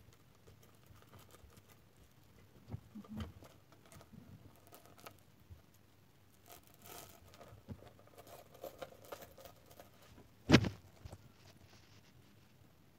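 Hands handling a small rubber handbag and its metal chain strap while threading the chain onto it: faint rustles and light clinks, with a couple of soft knocks about three seconds in and one sharp knock about ten and a half seconds in.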